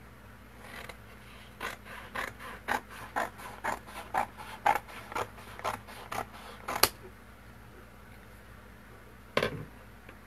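Scissors cutting through a sheet of watercolor paper, about two snips a second for some six seconds, ending with a sharper click. A single thump comes near the end.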